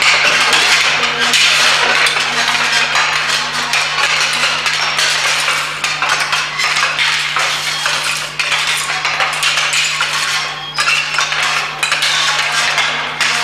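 Thin metal wire figures clinking and rattling as they are moved and dragged across a hard floor, played back through loudspeakers over a steady low hum.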